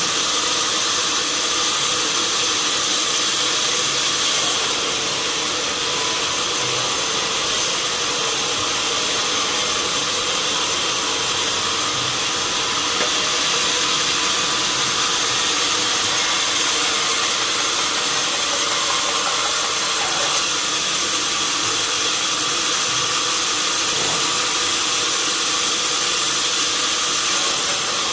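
Sawmill saw running steadily, a constant high hiss and whine with several steady tones and no breaks.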